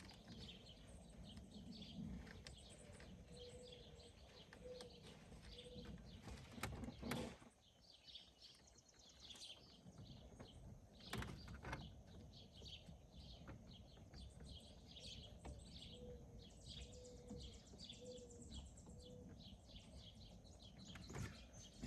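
Faint birds chirping in the background, with a couple of sharp knocks about seven and eleven seconds in.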